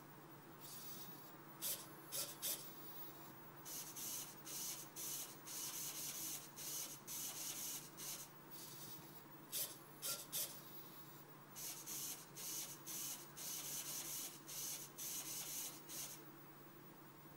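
Small Dynamixel servo motors whirring in short, choppy bursts as a robot's gripper arm and joints move. A set of three sharp clicks comes about two seconds in and another about ten seconds in.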